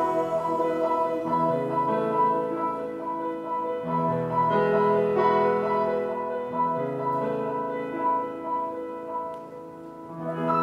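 Grand piano playing slow, held chords after the hymn's last sung line, changing chord every two to three seconds, with a new chord struck near the end.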